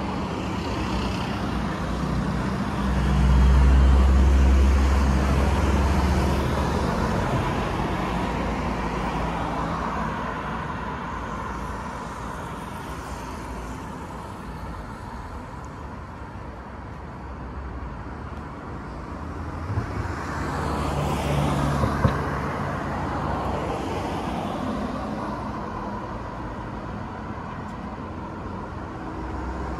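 Road traffic noise: a continuous hiss of tyres and engines. A loud low rumble swells and fades a few seconds in, and another vehicle passes loudly around twenty seconds in.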